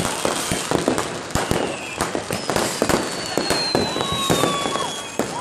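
New Year's Eve fireworks and firecrackers going off all around in rapid, irregular, overlapping bangs and crackles. Through the second half a long high whistle slowly falls in pitch.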